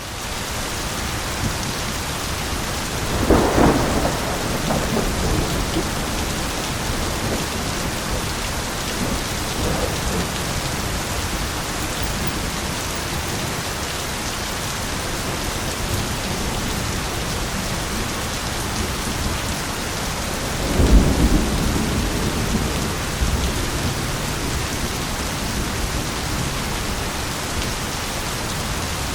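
Steady heavy rain in a thunderstorm, with two rolls of thunder, about three seconds in and again about twenty-one seconds in, each rumbling and fading over a couple of seconds.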